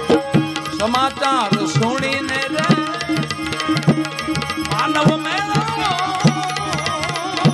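Gujarati devotional bhajan: a man sings with wavering ornaments over a harmonium's held chords. Tabla strokes and small hand cymbals keep a steady rhythm throughout.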